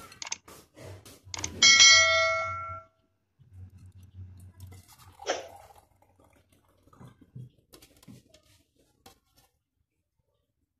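Subscribe-button sound effect: a few quick mouse clicks, then a bright notification bell ding about one and a half seconds in that rings for about a second. A low hum runs under it, with a fainter ding and a few soft taps later on.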